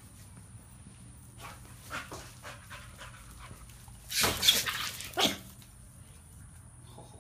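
A pit bull-type dog and a chihuahua play-fighting: panting and scuffling, then a loud bark-like outburst about four seconds in and a shorter one about a second later.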